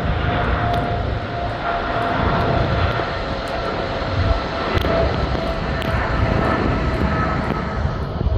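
Jet airliner engines running, a steady loud rumble and hiss with a faint whine held on top, dropping away right at the end.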